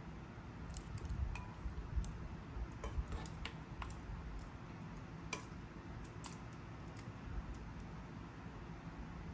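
Scattered light clicks and taps of kitchen tongs and tuna steaks being set into a ceramic bowl, over a low steady rumble.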